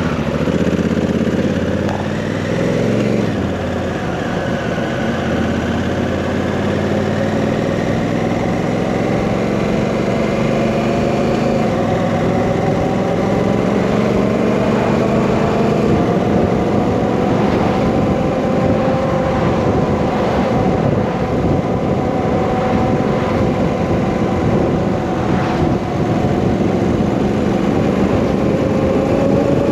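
Honda Africa Twin CRF1000's parallel-twin engine running under way. Its pitch shifts about three seconds in, then rises slowly as the bike pulls along, with steady wind and road noise underneath.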